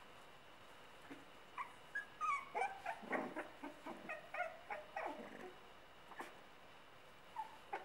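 Sealyham terrier puppy whimpering and yipping in a run of short, high calls that bend in pitch. Most of the calls come in the middle few seconds.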